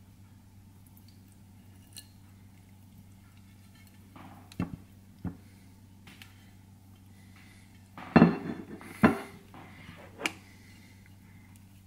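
Ceramic plates handled and set down on a kitchen counter: a couple of light knocks around the middle, then two loud clatters about a second apart and one more knock.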